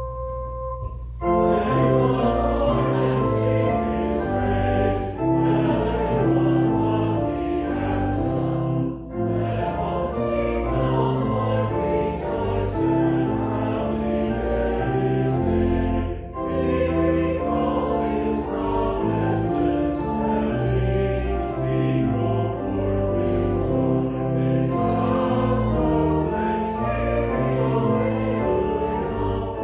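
Church organ playing a hymn in sustained full chords, with short breaks between phrases about nine and sixteen seconds in.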